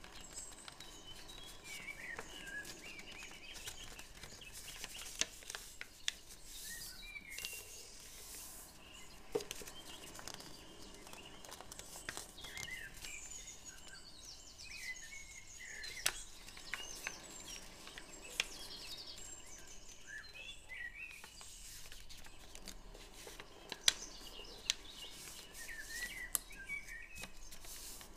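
Paper crinkling and creasing in short, scattered sharp clicks as a sheet of origami paper is folded and pressed flat by hand. Birds chirp faintly in the background throughout.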